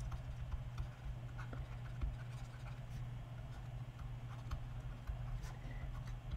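Faint taps and scratches of a stylus writing on a drawing tablet, scattered short clicks over a steady low hum.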